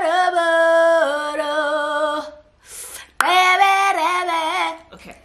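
A woman singing unaccompanied: a long held phrase, a pause of about a second, then a second shorter phrase.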